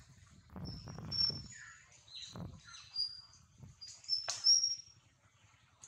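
Birds chirping: a string of short, high-pitched notes, the loudest and most clustered a little past halfway, over a low rumbling background.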